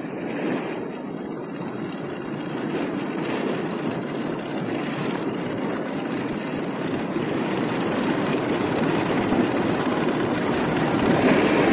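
Propeller aircraft engines running: a steady drone that slowly grows louder.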